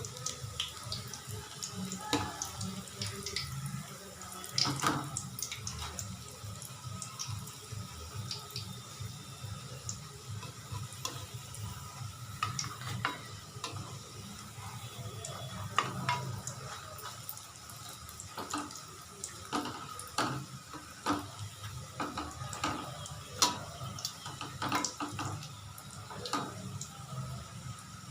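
Spring rolls deep-frying in hot oil: a steady sizzle with frequent crackling pops.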